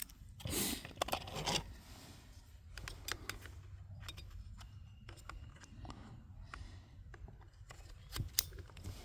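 Small clicks and scraping rustles from handling the rifle and its gear, with two sharper clicks near the end.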